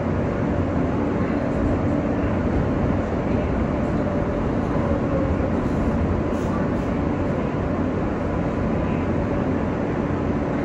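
R143 subway car heard from inside, running on the rails: a steady rumble of wheels and motors with a few faint steady tones, as the train slows into a station.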